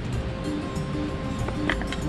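Instrumental background music with steady held notes.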